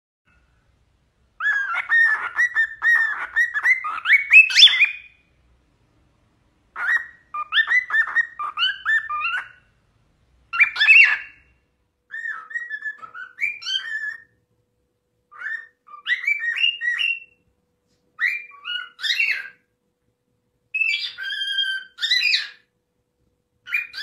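Male cockatiel whistling its song: a first long phrase of rapid chirpy notes ending in rising whistles, then shorter whistled phrases separated by pauses of about a second.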